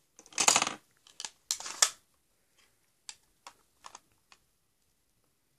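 Small handling sounds of a makeup palette and brush: a brief rustle and scrape, then four quick light clicks less than half a second apart.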